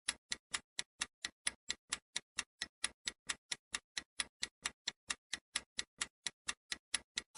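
Fast, even clock ticking, about four to five ticks a second: a countdown-timer sound effect marking the answer time for a quiz question.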